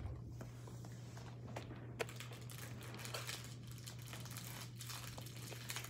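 Close rustling and crinkling with many small clicks and taps, starting about two seconds in, over a steady low hum.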